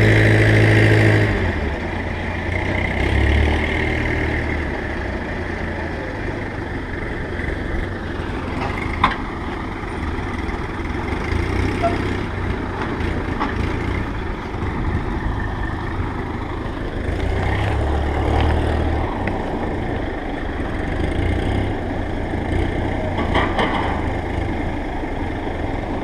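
Heavy diesel truck engine running, louder and higher for about the first second, then a steady low rumble that swells twice, with a sharp click about nine seconds in.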